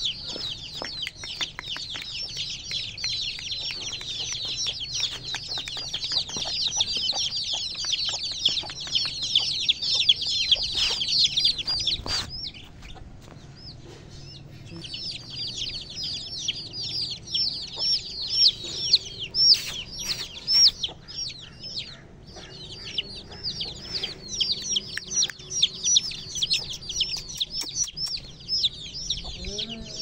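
A flock of month-old Aseel chicks peeping, many high chirps that fall in pitch and overlap continuously. About twelve seconds in the peeping stops for two or three seconds, then starts up again.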